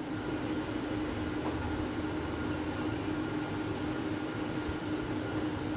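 Steady background hum with a low rumble and one constant mid-pitched tone, the even noise of room machinery.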